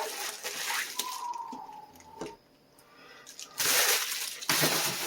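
Packaging being handled and opened: crinkly rustling in bursts, quiet for a moment in the middle, then two louder rustles near the end.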